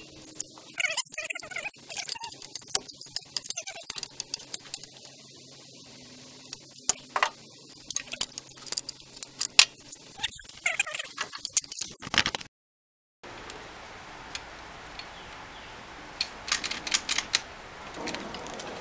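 Metallic clicking and rattling from a handheld circular saw as its depth-of-cut lever and base plate are worked, in uneven bursts. After a brief dropout, a short run of sharp clicks comes near the end.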